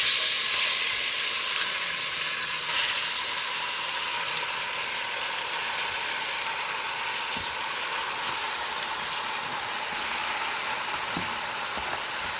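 Raw chicken pieces going into hot oil and browned curry powder in a pot, sizzling loudly. The sizzle starts all at once, flares briefly about three seconds in, then settles to a steady frying hiss.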